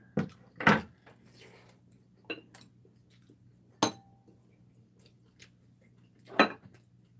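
Tableware clinks during a meal: chopsticks and metal kitchen scissors knocking against bowls and a serving plate, about six short sharp clinks, the loudest near the end. A faint steady low hum runs beneath.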